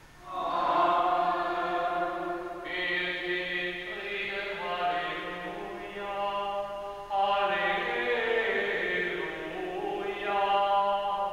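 Liturgical chant sung at the closing blessing of a Catholic Mass, in four phrases of long held notes.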